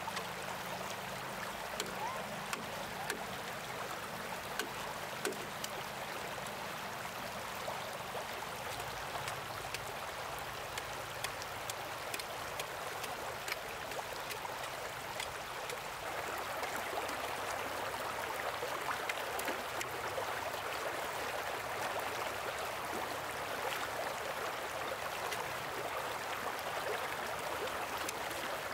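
Stream water running and splashing, with scattered small clicks and knocks through it; the water gets louder a little past halfway.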